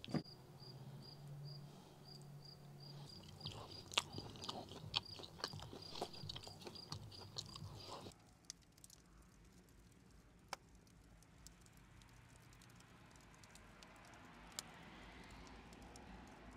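Chewing and crunching as grilled rat meat is torn and eaten, with a high chirp repeating two or three times a second behind it. About eight seconds in this gives way to a quieter wood fire burning in an oven, with a few sharp crackles.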